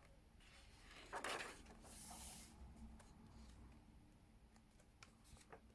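Faint rustle of a colouring book's paper pages being handled: a short swish about a second in, another about two seconds in, and a few small ticks near the end.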